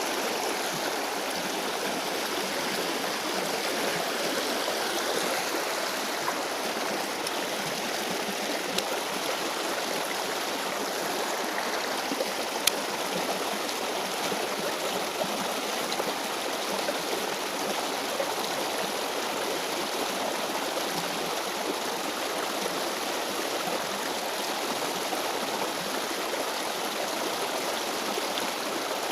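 Shallow stream water running steadily over its bed. A single sharp click about halfway through.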